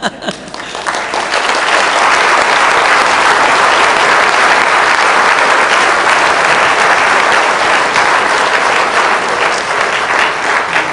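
Audience applauding. The clapping builds over the first second or two, holds steady, and thins a little near the end.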